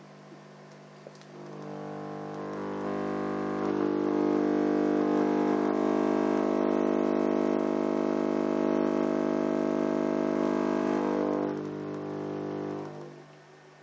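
Subwoofer playing a steady 50 Hz test tone with many overtones. Its volume is turned up in steps over the first few seconds, held loud, then turned down in two steps near the end.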